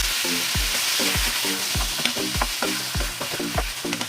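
Chicken pieces frying in hot oil, a steady sizzle with scattered clicks of a utensil stirring in the pan. Background music with a steady thumping beat, about three beats a second, runs underneath.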